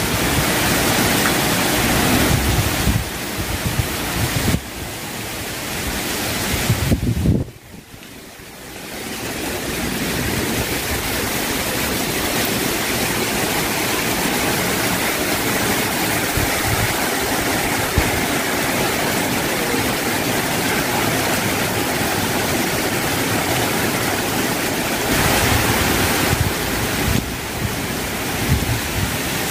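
Heavy rain pouring steadily, with wind gusting against the microphone. The sound drops away sharply about seven seconds in and builds back over the next two seconds.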